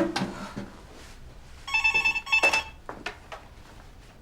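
Landline telephone ringing once, a double ring of two short bursts about two seconds in.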